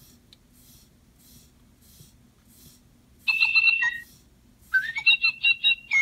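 Little Live Pets electronic toy bird singing after its back is petted: after about three seconds of quiet, a short burst of electronic chirps, then a rising whistle that breaks into a quick run of chirps near the end.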